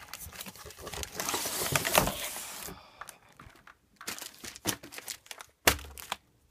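Firework canister-shell packaging being handled as stacks of shells are pulled out of their cardboard box: about three seconds of continuous rustling, then scattered clicks and a sharp knock about a second before the end.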